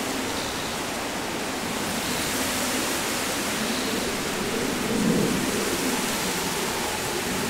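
Wind blowing through a bed of common reeds: a steady rustling hiss, with a gust swelling about five seconds in.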